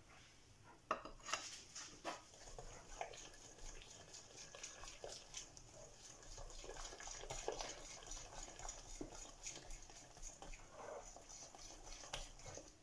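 Hand whisk stirring flour and cocoa powder into cake batter in a glass bowl: quick, irregular scraping and light clinking of the wires against the glass, starting about a second in.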